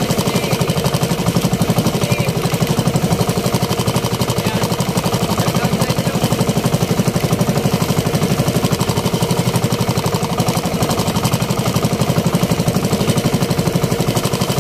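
Small outrigger fishing boat's engine running steadily under way, a fast even beat.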